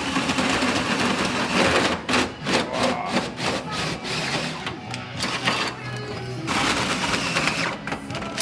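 Electric drill running in bursts, starting and stopping as it bores a hole through the sheet-metal body of a Mitsubishi Triton for a snorkel, with music playing alongside.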